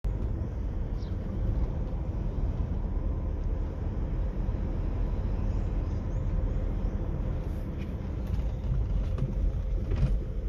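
Car driving with a rear window open: steady wind and road noise rumbling through the cabin, with a faint steady hum.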